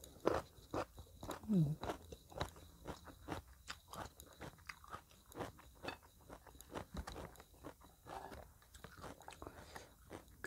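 A person chewing food close to the microphone: a steady run of soft, crunchy mouth clicks, a few a second, with a short hum about one and a half seconds in.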